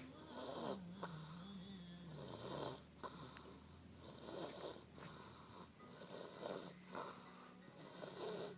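Steady snoring, one loud snore about every two seconds with shorter breaths between.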